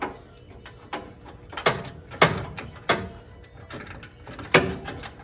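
Hand tools clanking and clicking against metal while the steering box is being unbolted: about five sharp, irregular metallic strikes, each ringing briefly.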